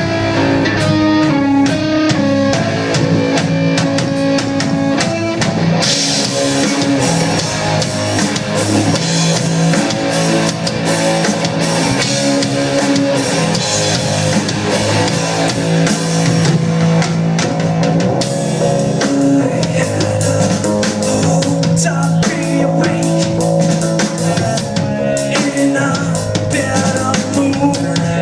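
A rock band playing live: drum kit and guitar, with steady drum hits throughout.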